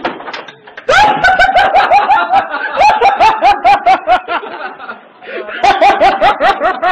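A person laughing hard in rapid, repeated "ha" bursts, starting about a second in, breaking off briefly, and starting again near the end.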